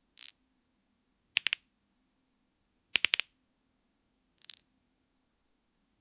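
Knuckle-cracking and bone-crunching sound effects: sharp pops and cracks in short groups about one and a half seconds apart. Some groups are a single soft crunch; others, loudest about three seconds in, are quick runs of three or four cracks.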